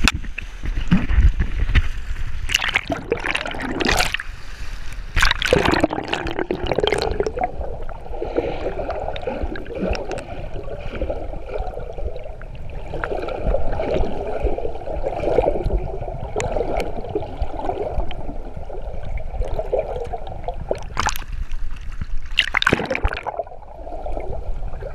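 Sea water heard through a handheld action camera dipped into shallow surf. It splashes and sloshes as it breaks the surface in the first few seconds and again near the end. In between it gives a muffled underwater gurgle and churn.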